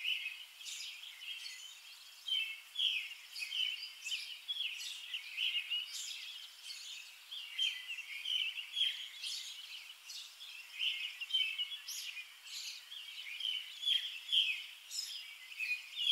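Small birds chirping: many short, high, overlapping chirps, several a second.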